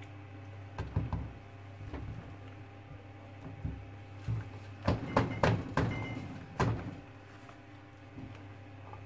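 A silicone spatula knocking and scraping against a slow-cooker crock while thick, mashed-potato-like hot-process soap is scooped out and pressed into a silicone mold. Scattered thunks, with a close run of the loudest knocks about five to six and a half seconds in, over a steady low hum.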